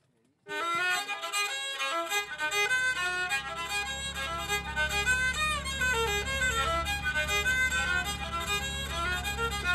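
Background music: a bowed fiddle melody that comes in suddenly about half a second in, joined by a low sustained accompaniment from about two seconds in.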